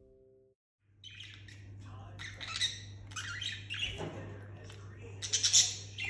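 Budgerigars chirping and chattering in short, high calls, loudest near the end, over a steady low hum.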